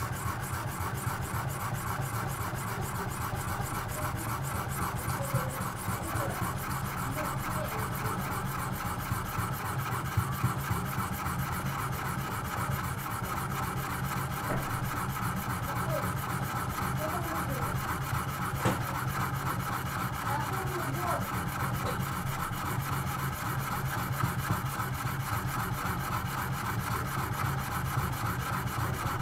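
Medium-grit sharpening stone in a guided sharpening system being stroked back and forth along a steel kitchen-knife blade, a steady run of quick abrasive rasping strokes that is cutting well.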